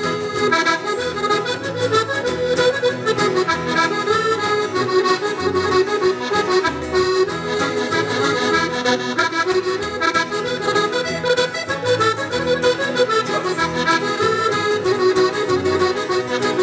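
Accordion playing an instrumental break in a lively Scottish folk song, chords over a steady bass note about once a second.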